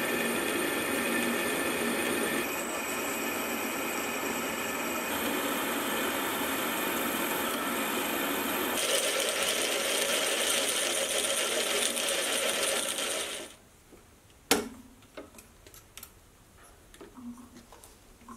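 Sieg X2.7L milling machine running with a twist drill cutting holes in 4140 chromoly steel, a steady whirring whose tone changes abruptly a few times. It stops about 13 seconds in, followed by one sharp knock and a few faint clicks.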